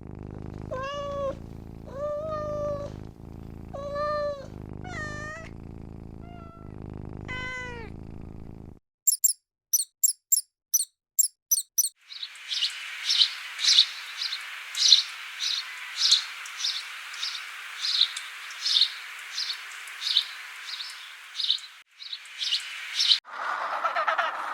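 A cat meowing about six times, each meow bending in pitch. After that come a few seconds of short, sharp, high chirps, then a long run of rapid high chirping over a steady hiss, from another animal.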